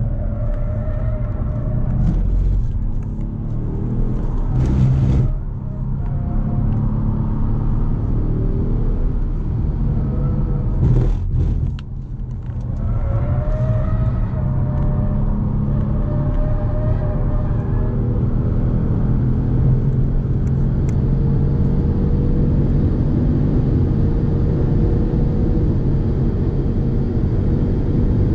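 2018 Kia Stinger GT's twin-turbo V6 under hard acceleration on track, its note climbing with engine speed. There is a brief dip about five seconds in and a deeper break near twelve seconds, then a long, steadily rising pull.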